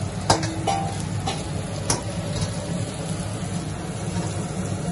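Puri deep-frying in hot oil in an aluminium kadhai over a steady low rumble, while a metal ladle clinks against the pan four times in the first two seconds. The first clink, near the start, is the loudest and rings briefly.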